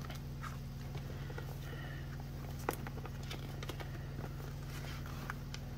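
Faint rustling and clicking of polymer banknotes and a clear plastic binder envelope being handled, with one sharper click about two and a half seconds in, over a steady low hum.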